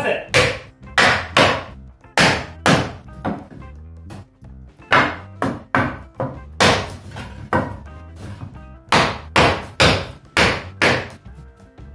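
Hammer striking a wooden tapping block, driving a tight-fitting floorboard into place. Repeated sharp wooden knocks come about two to three a second in runs, with short pauses about four and eight seconds in.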